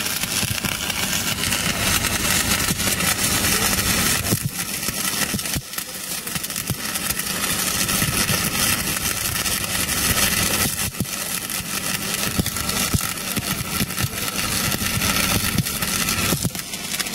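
Stick-welding arc crackling and sputtering steadily, with a few brief dips in level.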